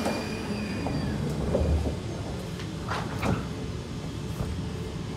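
Sliding passenger doors of a Kawasaki C151 metro train closing: a heavy low thump about a second and a half in, then two sharp clunks about three seconds in, over the carriage's steady low rumble.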